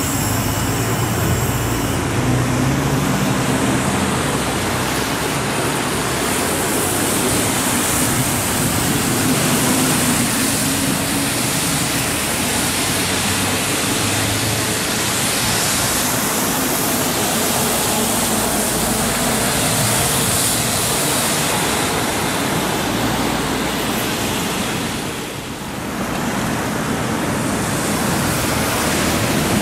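Road traffic on wet asphalt: a steady hiss of tyres on the wet road with passing car and bus engines, dipping briefly about 25 seconds in.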